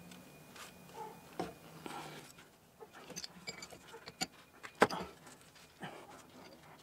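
Scattered faint clicks, taps and light scrapes from a steel pipe wrench being worked on a PVC threaded male adapter as it is turned into a cast iron stack hub. The sharpest knock comes about five seconds in.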